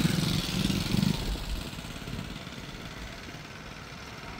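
A motor vehicle engine running with a low, pulsing rumble. It is loud for about the first second and a half, then drops to a quieter steady background rumble, as if the vehicle is pulling away.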